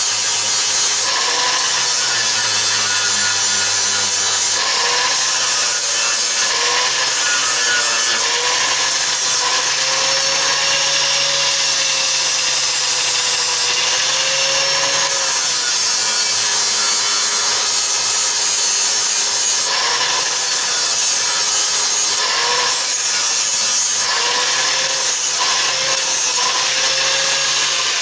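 Angle grinder grinding metal, running continuously, its motor pitch sagging and recovering again and again as it is pressed into the work.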